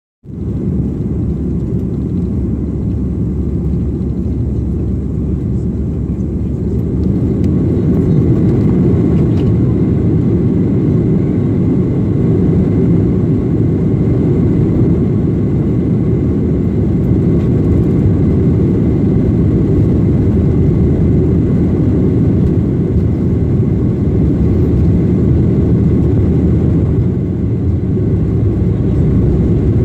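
Sukhoi Superjet 100 airliner's SaM146 turbofan engines at take-off power, a loud steady low rumble that grows louder about seven seconds in.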